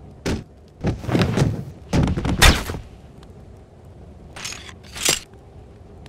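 Fight sound effects: a sharp hit, then two longer rough swish-and-impact bursts, the second one the loudest, and two shorter hits near the end.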